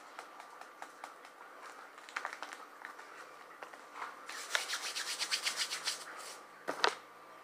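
Bare hands rubbing briskly against each other for about two seconds, a quick run of dry scratchy strokes, followed by a single sharp click near the end.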